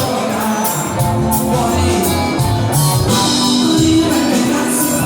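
Upbeat music with singing, a steady beat and guitar.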